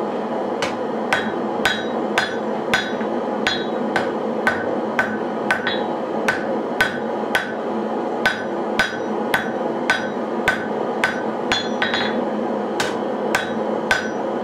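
Hand hammer striking red-hot steel on an anvil in an even rhythm of about two blows a second, drawing out and tapering a blade's tang. Each blow has a short metallic ring. A steady rushing noise continues underneath.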